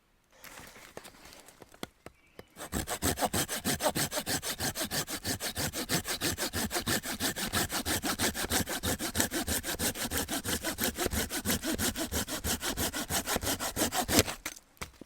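A walnut-framed bucksaw cutting through wood in fast, even back-and-forth strokes. It starts after a few light scrapes and stops near the end, just after one louder stroke.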